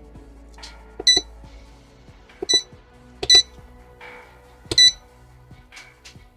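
Control-panel beeps of an OCA separator used as a PCB preheater: four short electronic beeps, each with a button click, as its temperature setting is stepped up.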